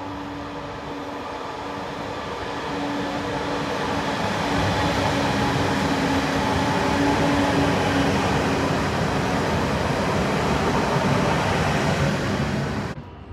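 Two coupled electric multiple units (EN99 and EN64) running past a station platform, with wheel-on-rail rumble and a steady electric hum. It grows louder as the train comes near, holds, then cuts off suddenly near the end.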